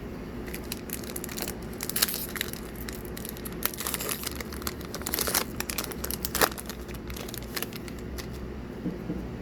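Crinkling and crisp snapping of a Magic: The Gathering booster pack wrapper and its trading cards being handled. The sound comes as irregular clicks and rustles, busiest in the middle few seconds.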